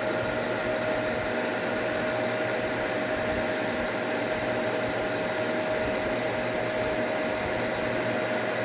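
Diablo Model 31 disk drive running with its cover off: a steady whir of the spinning disk cartridge and its cooling air, with a faint steady hum, while the drive loads the pack before the heads come down.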